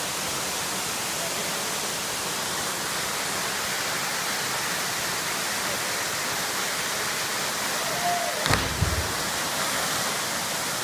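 Steady rushing of twin waterfalls pouring into a plunge pool. About eight and a half seconds in there is a sudden thump as a person jumping from the cliff hits the water.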